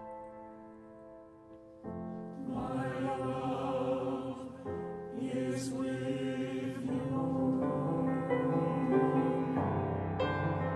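Mixed-voice virtual choir singing a slow anthem. A held chord dies away quietly, then the voices come back in together about two seconds in and sing on in sustained harmony.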